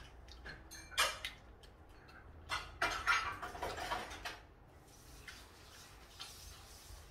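Dishes and cutlery clinking and clattering: one sharp clink about a second in, then a run of clatter for about two seconds, fading to quiet toward the end.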